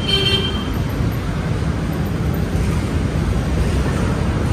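Steady low rumble of street traffic, with wind on the microphone; a vehicle horn toots briefly at the very start.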